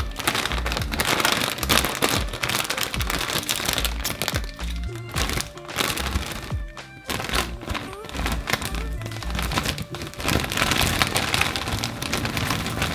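Crinkling and crackling of a metallised plastic snack bag of cheese puffs being opened and handled, over background music.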